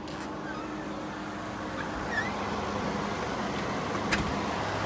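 Window air conditioner running, heard from its outside end: a steady fan noise that grows louder as it is approached, with a single sharp click about four seconds in.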